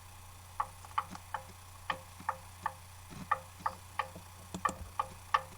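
Knocking on a window: four sets of three quick, sharp knocks.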